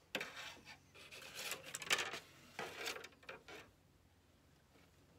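Faint, irregular rubbing and scraping of hands on the thin aluminium skin of an RV-7 elevator's trailing edge, with a few light clicks, dying away about three and a half seconds in.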